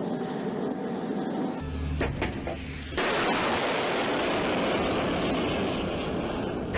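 Steady rushing noise of an S-300 surface-to-air missile's rocket motor at launch, cutting in suddenly about three seconds in. Before it come a low hum and a couple of sharp clicks.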